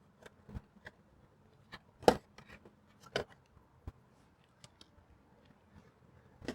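A few small sharp clicks and taps as the license plate frame's screw-cover tabs are pressed into place, the loudest about two seconds in and another about a second later.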